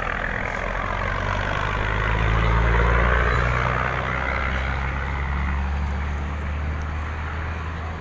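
A motor vehicle passing on the road, its engine hum and tyre rush growing louder to a peak about three seconds in, then fading.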